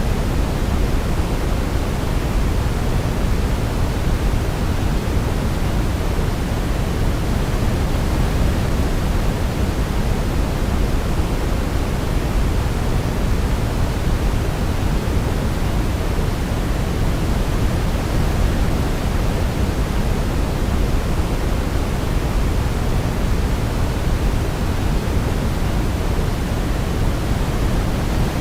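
Steady synthetic sleep noise: an even, unbroken hiss weighted towards the low end, with no melody or other sounds standing out.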